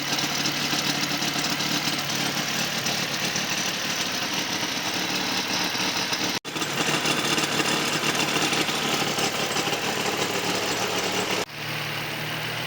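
Nissan 350Z's 3.5-litre V6 idling with a strange knock-like noise from the engine bay, which the owner traces to a belt-driven pulley or tensioner with play in its shaft rather than to the engine itself. The sound cuts off abruptly twice, and near the end the engine runs quieter and steadier with the auxiliary belts removed.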